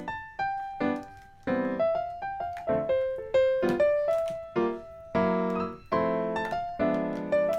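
Background piano music: single notes and chords struck and left to ring and fade, a slow melody over lower chords.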